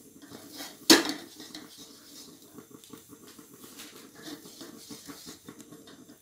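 A wooden spatula scraping and pushing a thick cashew-and-sugar dough around a nonstick kadai, still being stirred on the flame because it is not yet done. One sharp knock about a second in stands out as the loudest sound.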